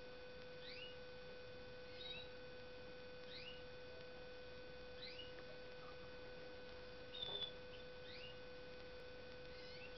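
Caged finches calling: short rising chirps about every second and a half, with a louder call about seven seconds in, over a steady electrical hum.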